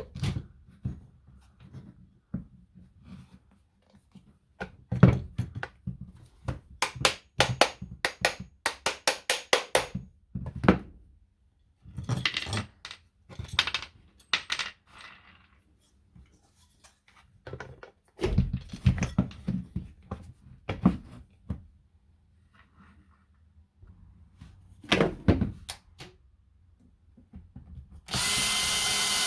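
Parts and tools being handled while the Makita DGA463 18V brushless angle grinder is reassembled: scattered clicks and knocks, a quick run of sharp clicks, and short bursts of noise. About a second before the end the grinder is switched on and runs steadily with a whine, being test-run on its newly replaced armature bearing.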